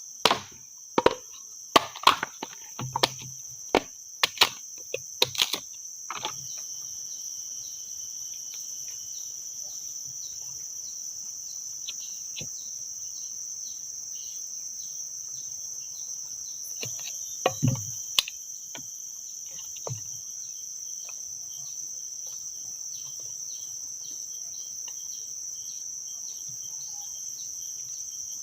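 Insects chirring in the forest: a steady high-pitched drone, joined from about six seconds in by a second insect pulsing evenly about twice a second. A quick series of sharp knocks comes in the first few seconds, and a few more come briefly near the middle.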